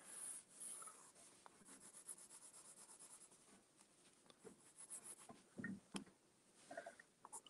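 Faint scratching of a coloured pencil hatching on paper, in quick repeated back-and-forth strokes. There are a few soft knocks near the end.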